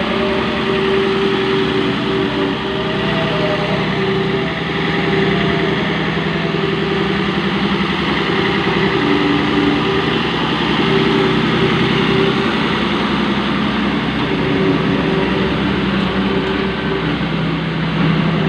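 Road roller's engine running steadily, with a constant hum.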